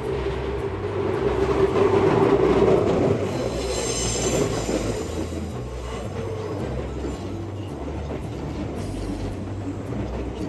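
Kintetsu Minami-Osaka Line train running through a sharp curve, its wheels squealing against the rails. The train is loudest about two to three seconds in, and a high-pitched squeal comes in around four seconds.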